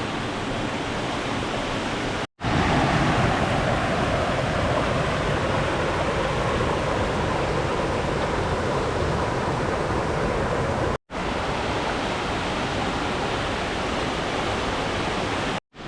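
Waterfall in spate after heavy rain: a loud, steady rush of falling water. It cuts out abruptly for a split second twice, about two seconds in and about eleven seconds in, then carries on unchanged.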